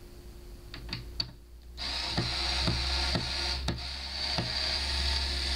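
A few clicks, then a power screwdriver runs steadily for about four seconds, backing out a screw from a speaker cabinet, with a sharp click about twice a second.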